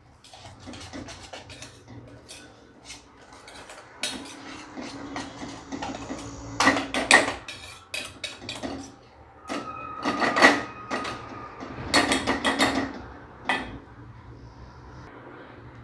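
Wire whisk scraping and clinking against a stainless steel bowl while beating a thick semolina and curd batter, in irregular strokes that come in louder bursts in the middle, stopping near the end.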